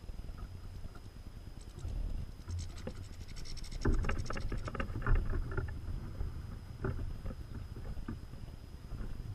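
Wind rumbling on the microphone, with a flurry of sharp clicks, taps and knocks from about two to five seconds in, a few more near seven seconds: finches scrabbling and scuffling at a hanging plastic seed feeder.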